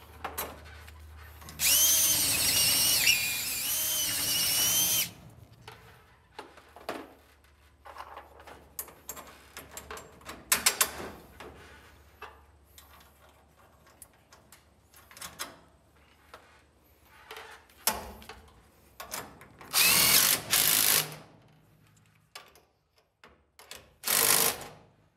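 Cordless drill running in three bursts, a long one of about three seconds near the start and two short ones near the end, its motor whine wavering as it drives fasteners into a perforated steel hanger strap. Between the bursts come scattered clicks and knocks of metal parts being handled.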